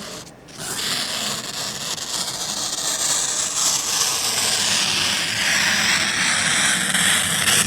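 Knife blade slicing slowly through a sheet of plain paper: a continuous papery hiss that stops abruptly at the end of the cut.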